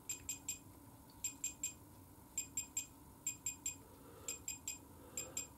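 Digital torque wrench beeping in quick groups of two or three short high beeps, about one group a second, while it is being set to 110 newton metres.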